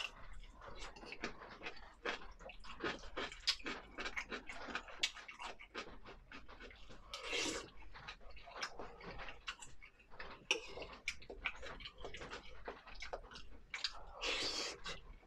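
Close-miked mukbang eating sounds: a steady run of wet mouth smacks and chewing clicks while eating spicy pickled-cabbage fish. Two longer hissing sounds come about halfway through and near the end.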